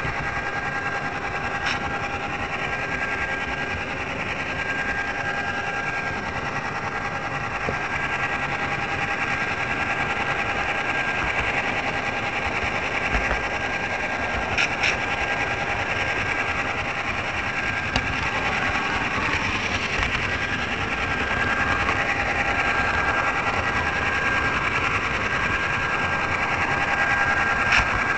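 HO scale model train running along its track, heard close up from on board: a steady whine from its small electric motor with a rushing rattle of wheels on rail, and a few brief sharp clicks.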